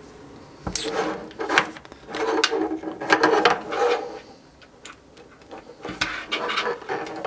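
Cables rubbing and being dragged across a table while connectors are fitted into the back panel of a DVR, with a few sharp plastic-and-metal clicks near the end.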